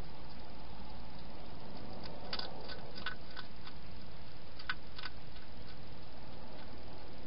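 Hedgehog eating from a bowl: a run of sharp, irregular clicks, like crunching food, from about two to five seconds in, over a steady background hiss.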